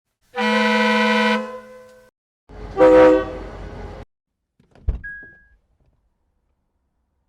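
Two separate car horn honks: a steady blast of about a second, then a second, differently pitched honk of about a second and a half. Near the end comes a sharp click followed by a short, high steady beep.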